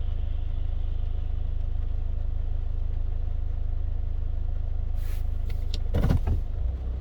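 Steady low road and engine rumble of a car driving in the rain. A few sharp clicks come about five seconds in, and a louder knock-like noise follows around six seconds.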